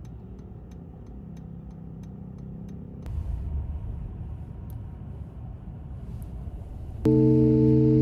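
Low steady rumble like a car in motion, with faint light ticks in the first few seconds. Music comes in abruptly near the end.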